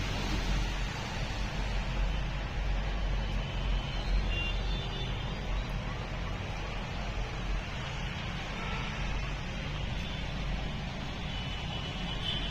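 Steady road traffic noise with a continuous low rumble of passing vehicles.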